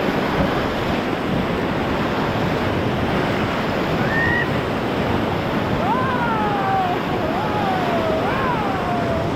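Whitewater of the Ocoee River rushing around a raft, a steady loud roar of water. A few high calls that glide up and then fall in pitch come over it about four seconds in and several more in the last few seconds.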